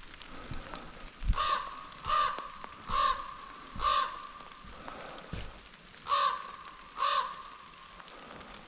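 Common raven calling: four short calls about a second apart, a pause of about two seconds, then two more. Light rain sounds underneath.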